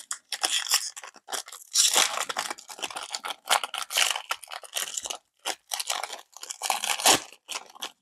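Plastic wrapper of a trading-card pack crinkling and tearing in the hands, in irregular crackles and rips.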